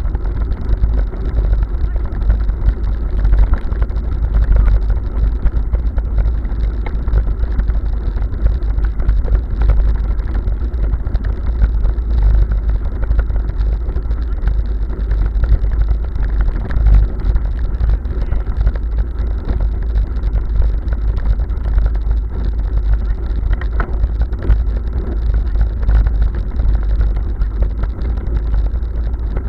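Bicycle rattling and its tyres rumbling over cobblestones at speed, with wind buffeting the microphone. Steady and loud throughout, with no pauses.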